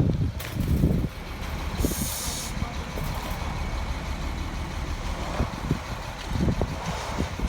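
Truck-mounted concrete pump running, with a steady low rumble, several heavy low thumps, and a short hiss of released air about two seconds in.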